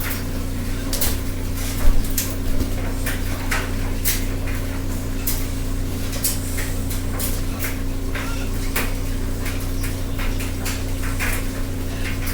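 Litex Builder ceiling fan running on high, its motor humming steadily under a constant patter of irregular clicks and rattles, with one louder knock about two seconds in; the fan wobbles badly at this speed.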